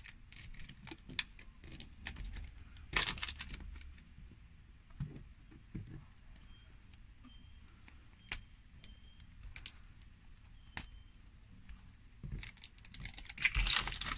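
Thin plastic wrap crinkling and crackling as it is peeled by hand off an L.O.L. Surprise ball. Scattered small crackles, with a louder burst about three seconds in and denser crinkling near the end.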